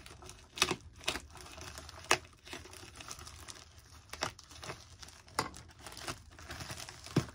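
Thin plastic bag crinkling and rustling as it is pulled and torn open by hand, with irregular sharp crackles about once a second.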